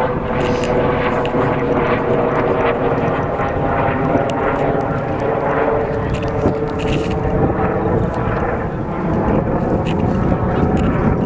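A steady engine drone, several even tones held over a low rumble, with faint distant voices.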